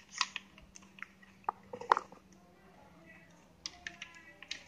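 Scattered light clicks and taps of plastic equipment and test leads being handled on a workbench, with a few sharper taps in the first two seconds.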